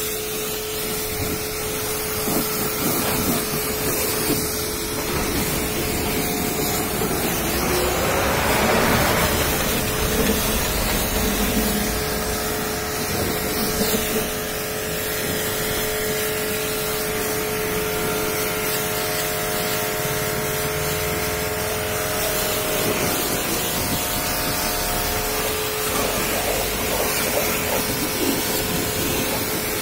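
High-pressure washer running: its pump motor hums at one steady pitch while the water jet hisses against the car's wheels and bodywork.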